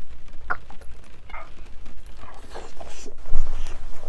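A person drinking makgeolli, with a few separate gulping and swallowing sounds.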